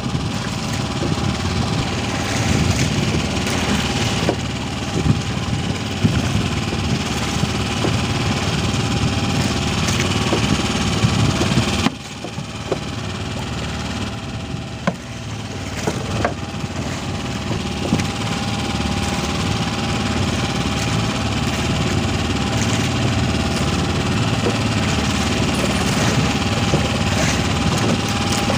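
Small engine on a fishing boat idling steadily, with occasional sharp knocks as the black fishing net is hauled in by hand over the side.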